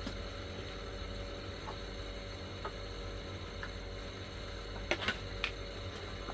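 Quiet room tone with a steady low hum and a few faint clicks, then two or three sharper clicks about five seconds in.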